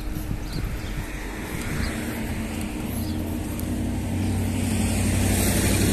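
A car approaching on the road, its engine hum and tyre noise growing louder over the last few seconds.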